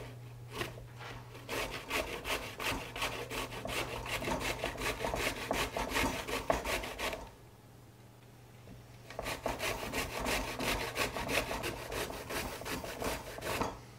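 A peeled sweet potato grated on a stainless steel box grater into a glass bowl, in quick rasping strokes about three a second. The strokes break off for about two seconds midway, then start again.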